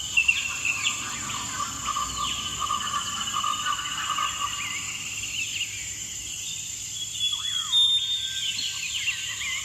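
Jungle ambience: a steady high insect drone under a fast trill and many short chirping animal calls.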